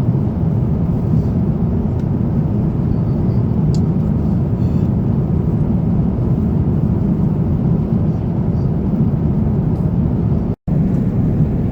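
Steady low rushing cabin noise of an Airbus A350-900 airliner in cruise, the airflow and engine drone heard from an economy seat. The sound drops out for an instant about ten and a half seconds in.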